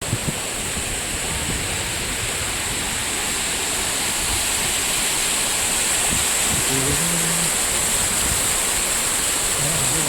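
Waterfall: a steady rush of falling water, with a brief faint voice about seven seconds in.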